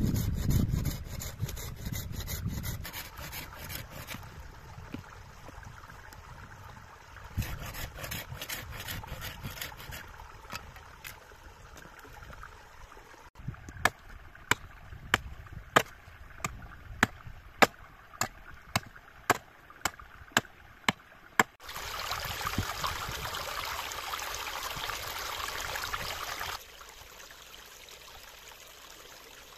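Hand work on wood: rubbing and scraping, then a run of about fifteen sharp knocks at roughly two a second. Then a few seconds of pouring, trickling water that stops suddenly.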